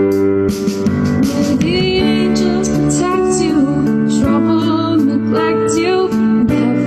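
A woman singing a song to strummed guitar accompaniment. The guitar plays alone at first, and the voice comes in about a second and a half in.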